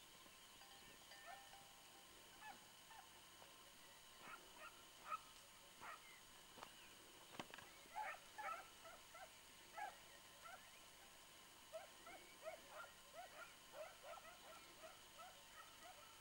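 Faint, distant hunting hound giving tongue while trailing a hare: short, repeated baying calls in irregular clusters, thickest in the middle and later part.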